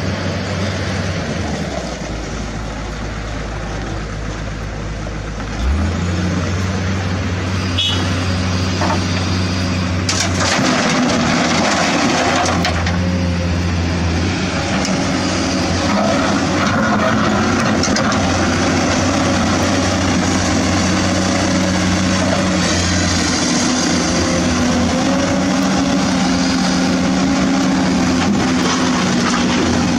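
Engine sound of heavy trucks running steadily, with a low hum whose pitch and loudness jump in abrupt steps every few seconds, over a grinding hiss.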